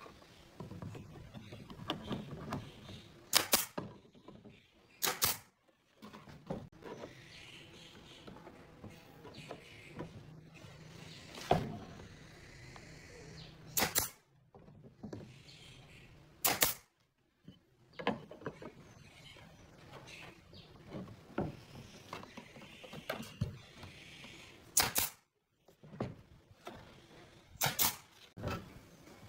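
SOYI pneumatic nailer firing nails into pine slats and frame: about seven sharp shots at uneven intervals, with lighter knocks of wood being set in place between them.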